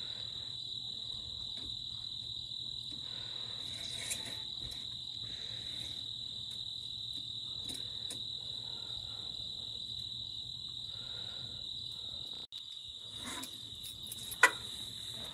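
Crickets chirping in a steady, continuous high trill, with one sharp click or knock near the end.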